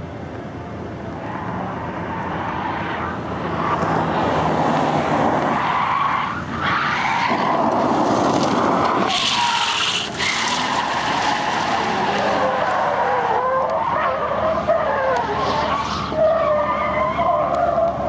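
A sedan drifting at speed, its tires skidding and squealing on asphalt. The sound builds over the first few seconds and then stays loud, with a wavering squeal in the later part.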